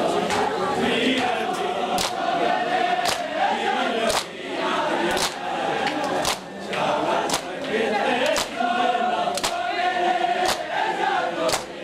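A large group of men chanting a noha together in chorus, with loud unison chest-beating (matam) slaps keeping time about once a second.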